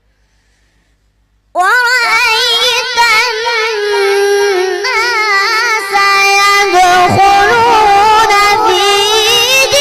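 Near silence, then about a second and a half in a boy's high voice begins a melodic Quran recitation (tilawat), drawing out long notes ornamented with quick wavering turns.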